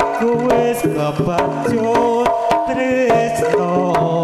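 Live Javanese jaranan accompaniment: kendang hand drums beating a quick, dense rhythm under sustained melodic instrument tones, with a wavering high melody line over them.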